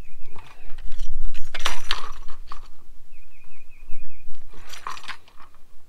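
Metal antenna radial rods clinking and rattling as they are handled and bent straight, with the loudest clatter about a second or two in and another near five seconds.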